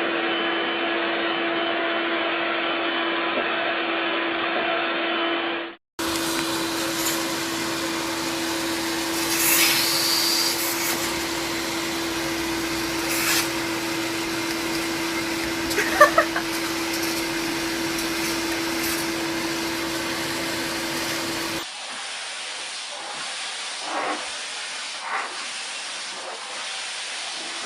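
Vacuum cleaner running with a steady humming drone and a rushing hiss of air. About two-thirds of the way through it becomes quieter, with a few brief knocks.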